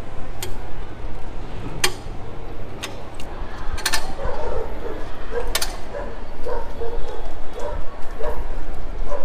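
Sharp metal clicks of a wheel clamp being fitted and locked onto a car's front wheel, two of them close together about four seconds in. From then on a dog barks repeatedly in short barks.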